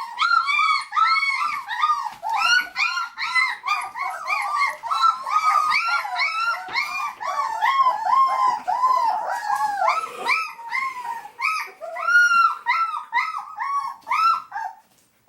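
A litter of young puppies crying and whimpering together, many short high-pitched cries overlapping, several a second, with a brief pause near the end.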